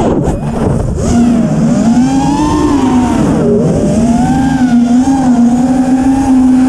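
T-Motor F40 III 2600 Kv brushless motors spinning HQProp 5043 tri-blade propellers on a 5-inch FPV quadcopter: a motor whine whose pitch rises and falls with the throttle. The pitch drops sharply at the start, climbs back about a second in, and dips briefly again around the middle.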